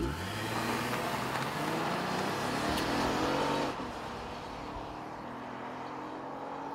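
Acura RLX's 3.5-litre V6 accelerating away, its engine note rising in pitch for about three and a half seconds. The sound then drops to a quieter, steadier note as the car pulls into the distance.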